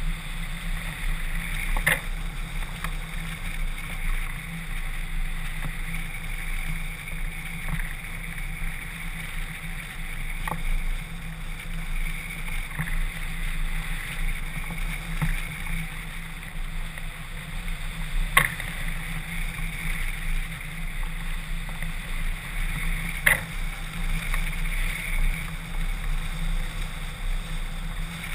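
Steady rush of wind over a camera mounted on a hang glider in flight, with a low hum underneath and a few sharp clicks scattered through.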